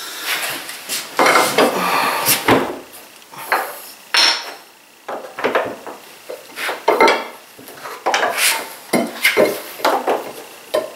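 Steel pry bar clinking, knocking and scraping against a hardwood workbench as it is worked into the joint to lever the top off its tenoned base; a string of irregular sharp knocks and clinks. The top is still stuck on its tenons.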